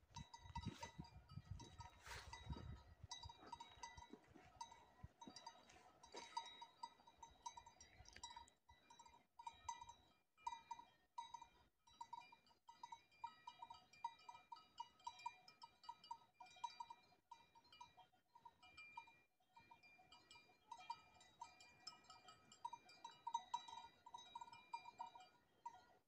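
Faint cowbells worn by cows, clanking in irregular repeated strokes at a couple of different pitches. There is some low rumbling noise in the first few seconds.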